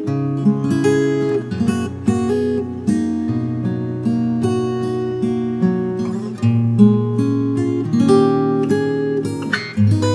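Acoustic guitar playing a slow, relaxing piece, plucked notes and chords ringing over one another with a new bass note every second or two.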